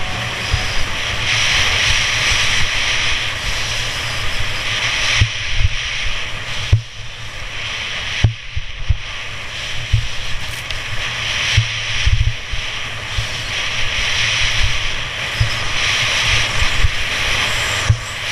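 Skis hissing and scraping over groomed snow, swelling and fading with each turn, while wind buffets the helmet-camera microphone with low rumbling thumps.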